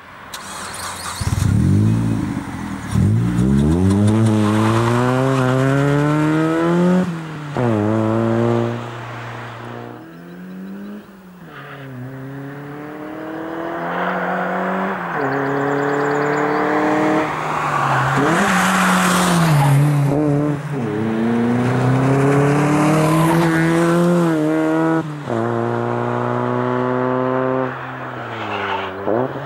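Mazda 323F's 1.8-litre 16-valve FP four-cylinder engine and exhaust pulling under light load, its note climbing steadily for several seconds and then dropping back sharply, over and over, as it goes up through the gears.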